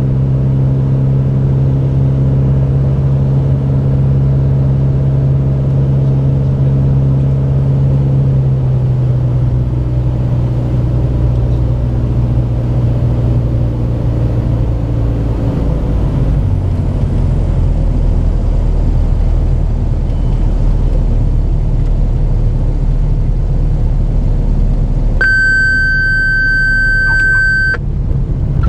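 Mooney M20J's four-cylinder Lycoming IO-360 engine and propeller heard inside the cabin on final approach, the engine note dropping as power is pulled back about eight seconds in, then settling to idle under rushing airflow. Near the end a steady warning horn sounds for about two and a half seconds, typical of the stall warning horn in the landing flare.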